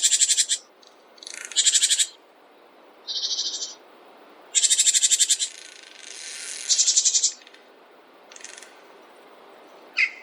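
Songbirds calling in a forest: a series of short, high-pitched rapid trills, each lasting about half a second to a second, one after another with short gaps, over a faint steady background hiss.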